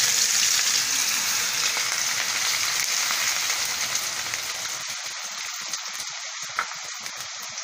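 Chopped onions sizzling in hot mustard oil in a heavy kadhai as they go in, the frying hiss loudest at first and slowly dying down as they are stirred with a metal spatula.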